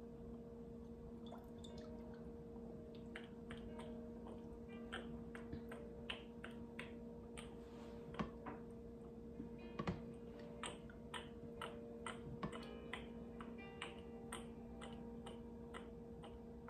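Canola oil dribbling from a pour dispenser into a frying pan: faint, irregular ticks and drips, more frequent in the second half, over a steady low hum.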